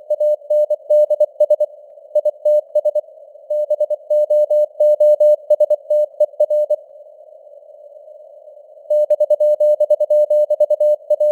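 Morse code (CW) sent at 24 words per minute as a single steady beeping tone keyed in dots and dashes, over a narrow hiss of simulated radio band noise. The keying stops for about two seconds in the middle, leaving only the hiss, then resumes.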